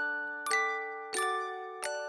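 Gentle background music played on a glockenspiel-like mallet instrument: slow struck chords, each ringing out and fading before the next, about one every half to two-thirds of a second.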